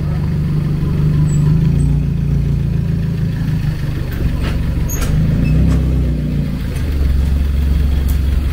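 Motor vehicle engines in street traffic close by: a low rumble that swells twice and settles lower near the end, with a few faint clicks.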